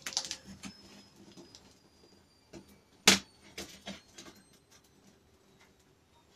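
A long cardboard box being handled: scattered light clicks and taps, with one sharp knock about three seconds in.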